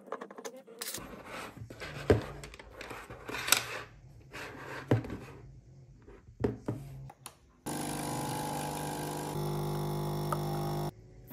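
Clicks and knocks of a compact camera being handled on a desk, with a low rumble under them. Then a capsule coffee machine's pump buzzes steadily while it dispenses coffee, its tone shifting lower partway through before it cuts off near the end.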